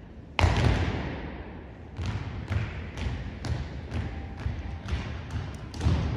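A drill team's boots striking a gymnasium floor in unison: one loud stamp about half a second in that rings through the hall, then marching steps at about two a second from about two seconds in.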